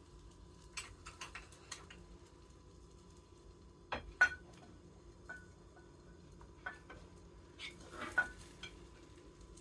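Cutlery clinking and tapping against a plate: a few light taps early, two sharper clinks about four seconds in with a brief ring, and a few more clinks near the end.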